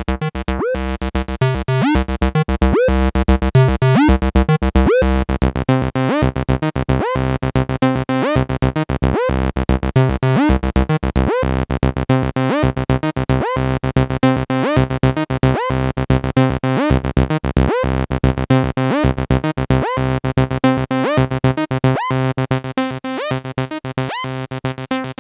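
MAM MB33 analog bass synthesizer, a TB-303 clone, playing a repeating acid bassline sequence: short pitched notes, about two to three a second, each with a quick sweep in tone.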